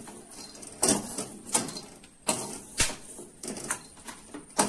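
Wooden spatula scraping and knocking against an aluminium kadai in a series of irregular strokes while dry-roasted black cardamom pods are scooped out of the pan.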